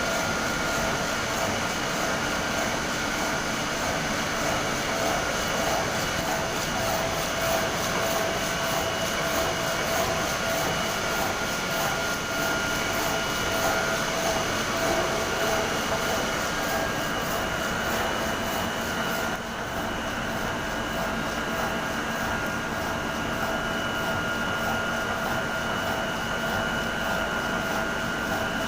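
Motorised cutting saw machine running continuously with a steady whine; its sound shifts slightly about two-thirds of the way through.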